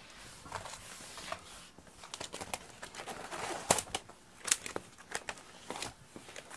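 Bamboo slat rug being shifted and pressed onto the floor: its slats clack and rustle in an uneven run of sharp clicks, with two louder clacks around the middle.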